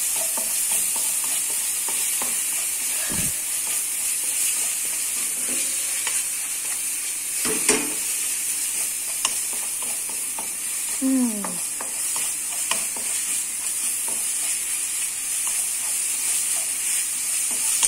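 Spice paste sizzling in hot oil in a nonstick wok, stirred and scraped with a wooden spatula, with a couple of sharp knocks along the way.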